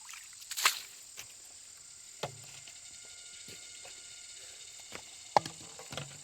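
Insects chirring in a steady high drone, with a few sharp clicks and knocks scattered over it.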